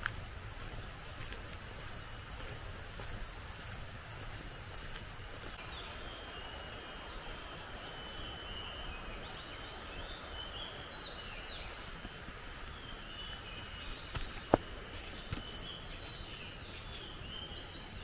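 A tropical forest insect chorus: shrill, steady, pulsing chirring at two high pitches over a low, steady rush. There is one sharp click about three-quarters of the way in, and a run of short, quick chirps near the end.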